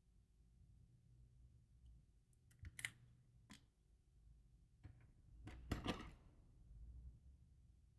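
Light clicks and taps from small phone parts and tools being handled on a workbench during reassembly. A few separate clicks come in the first half, and a louder cluster of taps near six seconds in.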